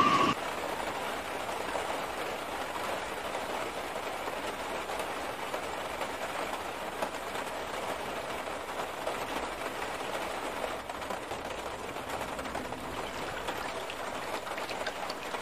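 Steady hiss of heavy rain and rushing floodwater, with no clear single event in it. A high steady tone from before cuts off right at the start.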